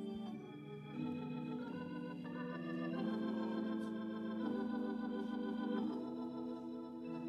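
Organ playing sustained chords, with the chord changing every second or two.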